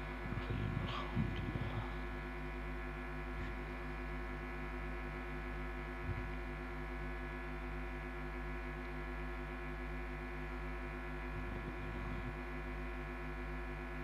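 Steady electrical hum from a microphone and sound system, with faint murmuring voices in the first couple of seconds.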